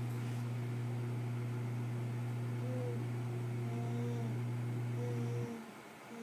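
A steady low hum that cuts off suddenly about five and a half seconds in. Over it in the second half, a baby makes a few short, soft coos.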